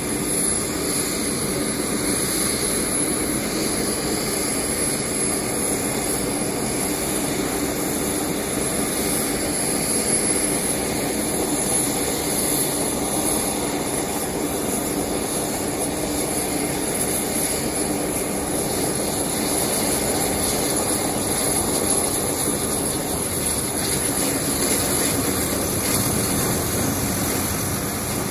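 Lockheed Martin C-130J Super Hercules turboprop engines running on the ground during start-up, with their six-bladed propellers turning. It is a steady hum and rush with a thin, high whistle above it.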